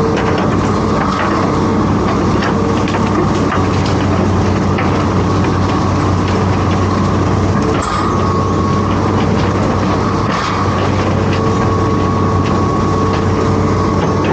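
Hitachi Zaxis 210F amphibious excavator's diesel engine running steadily under load, with a higher steady whine that drops out and comes back a few times and frequent short clanks and knocks.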